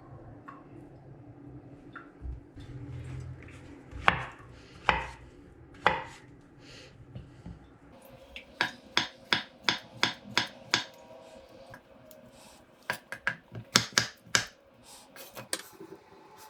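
Kitchen utensils striking a hard surface during food preparation: three separate knocks, then a run of quick sharp taps about three a second, then another tight cluster of taps near the end.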